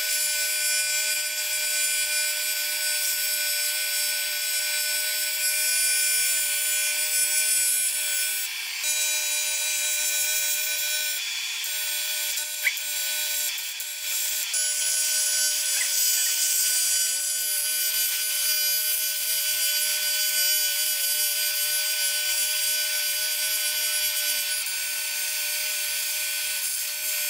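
Argon TIG welding arc on an aluminium cylinder head, welding a crack between the valve seats: a steady buzzing hiss with a constant high tone. It dips briefly a couple of times and has one sharp tick partway through.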